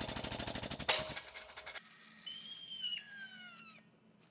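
Guided-bend tester's ram forcing a welded steel test coupon into a U for a face bend: the drive runs with a rapid, even pulsing, gives a sharp knock about a second in, and cuts off just under two seconds in. A squeal falling slowly in pitch follows as the ram draws back out of the bent coupon.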